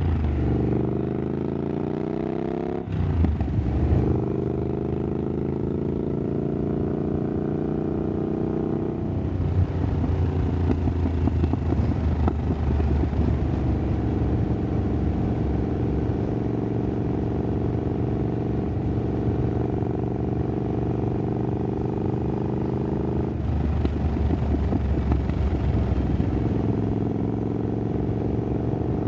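Triumph Scrambler 900's parallel-twin engine through an aftermarket exhaust while riding. The engine note falls for the first few seconds, then after a break about three seconds in it climbs steadily for about six seconds as the bike accelerates, and then holds a steady cruise. It grows briefly louder again about three-quarters of the way through.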